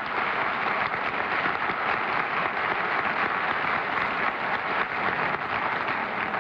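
Applause from a television studio audience and panel: many hands clapping in a dense, steady patter that holds at an even level.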